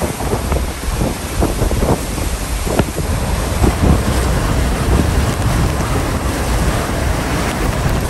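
Typhoon wind gusting hard with heavy rain, buffeting the microphone with a steady low rumble and rushing noise.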